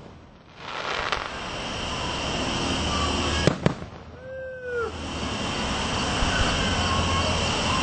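Aerial fireworks going off: a long wash of noise from the display, broken by one sharp bang about three and a half seconds in.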